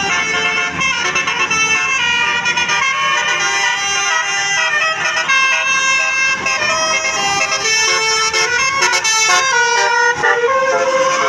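Tour bus telolet basuri multi-tone musical air horn playing a fast tune of short notes that step between pitches.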